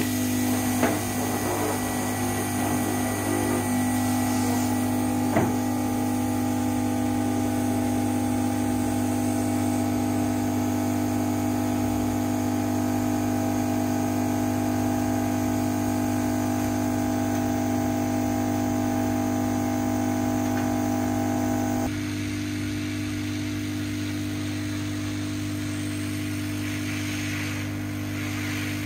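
Hot-air rework station running, its air pump giving a loud, steady hum that drops slightly about three quarters of the way through. A couple of light clicks in the first few seconds.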